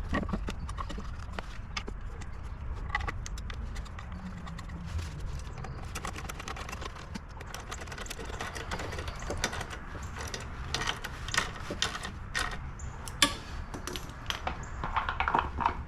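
Irregular clicks and knocks of tools and small mower parts being handled, the sharpest about 13 seconds in, over a steady low rumble.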